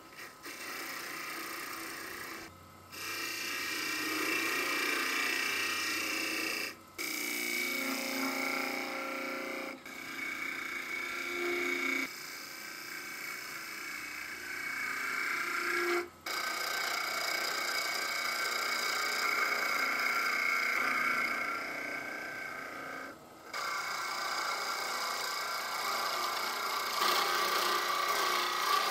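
Wood lathe spinning a green fir-wood goblet while a hand-held turning tool cuts the thin stem, making a steady cutting sound over the lathe's running. The sound drops out suddenly several times, then resumes.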